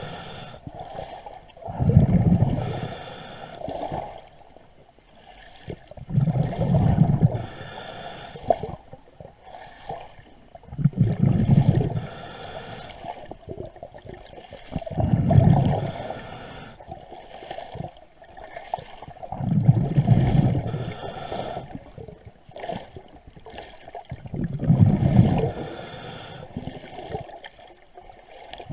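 A diver breathing through a regulator underwater: a rumbling gush of exhaled bubbles about every four to five seconds, with a fainter hiss of each inhale between them.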